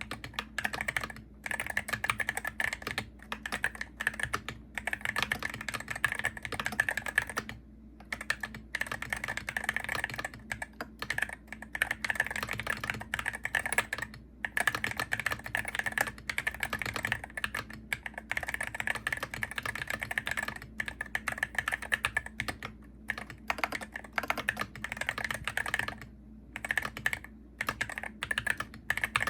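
Typing on a Hero68HE gaming keyboard: a fast, continuous stream of key clacks, broken by brief pauses about eight seconds in and again near the end.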